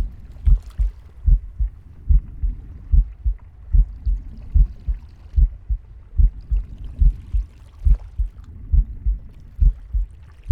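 Heartbeat: steady, regular low lub-dub thumps, a little over one beat a second, with a soft low rushing between the beats.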